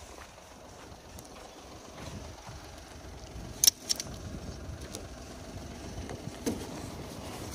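Scrap metal being handled: a sharp metallic click a little under halfway through, a smaller click just after it, and a duller knock near the end, over a steady low rumble.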